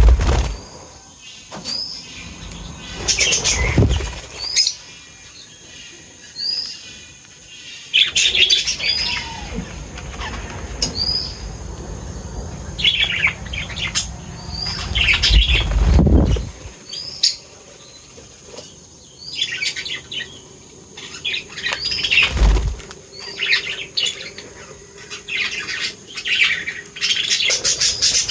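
Small pet birds chirping: one short rising call repeats about every two seconds over busier bouts of twittering, with a few louder bursts of wing flutter.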